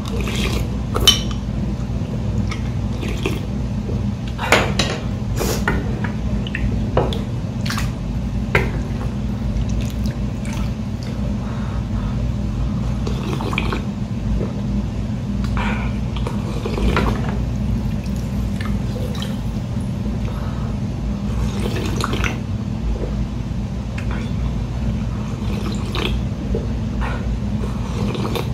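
Slurping of ramen noodles and broth from a small ceramic bowl, with scattered clinks of a spoon and ladle against the bowls. A steady low hum runs underneath.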